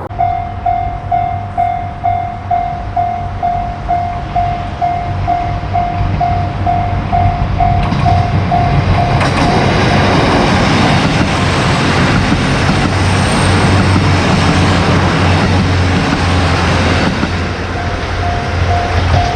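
Japanese railway level-crossing alarm ringing its electronic "kan-kan" bell, a little over two strokes a second. After about eight seconds a train passes over the crossing, and its running noise drowns the bell until the bell is heard again near the end.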